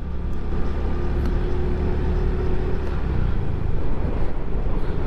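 Adventure motorcycle riding on a rough road: a steady, low rumble of engine and wind noise.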